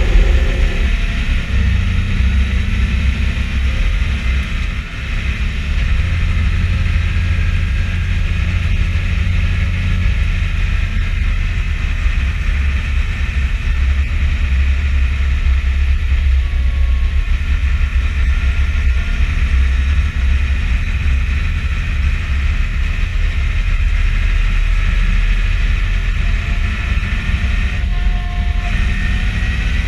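Fendt 512 TurboShift tractor driving on the road, heard from inside the cab: a loud, steady low engine drone with a fainter higher hum above it, dipping briefly about five seconds in.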